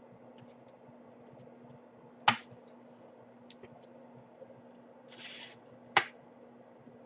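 Laptop casing being worked open by hand: two sharp clicks about four seconds apart, a brief scrape just before the second, and faint small ticks of the parts being handled.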